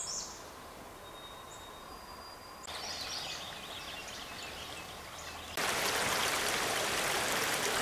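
Faint forest ambience with a few short, high bird chirps, then about two-thirds of the way through a sudden change to the steady rushing and babbling of a small brook flowing over rocks.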